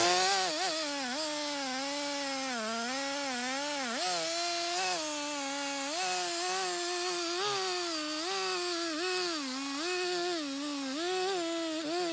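Stihl two-stroke chainsaw crosscutting through a black walnut log at full throttle. The engine note repeatedly sags and recovers as the chain loads and clears in the cut.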